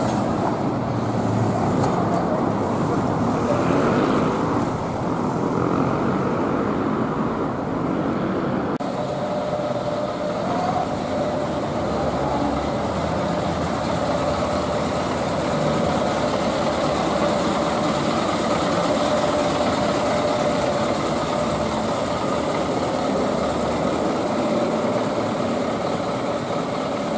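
Street traffic noise as a Hino Ranger truck drives past below; about nine seconds in it cuts to a steady diesel engine running close by, with one constant tone held over it.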